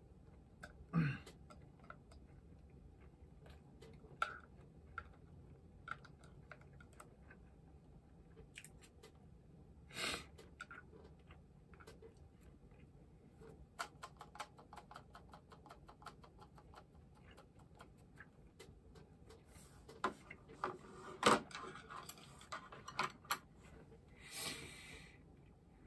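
Scattered light clicks, taps and knocks of tableware and small objects handled on a table, with a short run of quick ticks around the middle. The loudest knock comes a little past twenty seconds, and a brief rustling clatter follows near the end.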